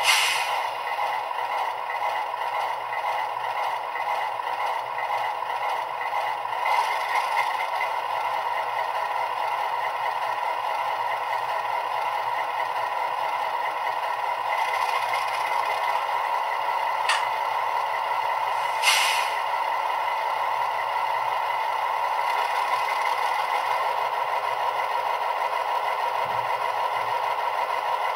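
Soundtraxx Tsunami2 sound decoder playing an Alco diesel prime mover at idle through a small ESU Sugar Cube speaker in a model locomotive: a steady, thin engine drone. Part way through there is a click and, shortly after, a brief hiss of air.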